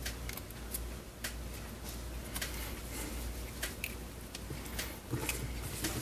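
Scattered light clicks and rattles of plastic multimeter test leads being handled and plugged into a terminal on a component test box.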